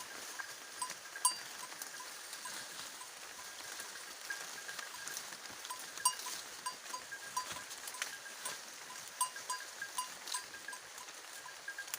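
Small bells on grazing goats clinking irregularly, a few times a second at the same two pitches, over a steady rustling hiss.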